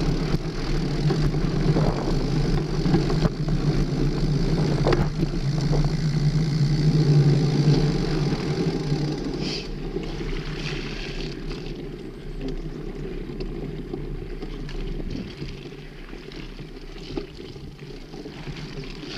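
Mountain bike tyres rolling over a wet, muddy dirt trail, with wind on the microphone: a steady rumble with a few knocks, loudest in the first half and easing off from about halfway through as the bike slows.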